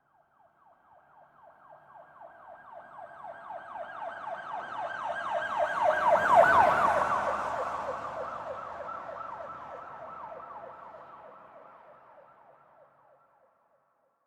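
Police car siren in a fast yelp, its pitch sweeping up and down several times a second as it passes by: it swells from faint to loudest about six and a half seconds in, with a brief rush of passing-vehicle noise, then fades away.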